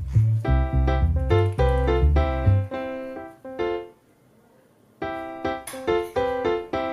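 Background music played on an electric piano or keyboard, with a melody over a bass line. The bass drops out a little over halfway, and the music stops for about a second before starting again.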